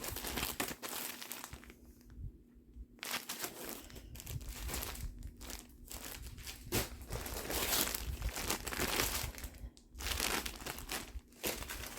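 Rustling and crinkling as vintage pillowcases and other linens are handled and unfolded, in uneven spells with short pauses about two seconds in and near ten seconds.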